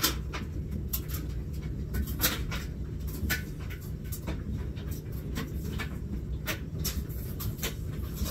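Irregular light clicks and knocks of a plastic laundry basket and clothes being handled, over a steady low hum.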